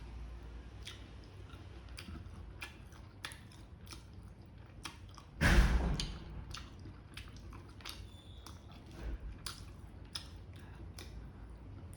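Close-up mouth sounds of chewing chicken gizzards: wet smacking with many short clicks, and one louder noisy burst about halfway through.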